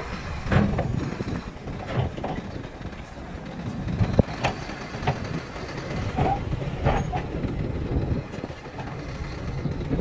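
Shantui crawler bulldozer's diesel engine running under load with a steady low rumble, broken by irregular sharp knocks and clanks from the working machine.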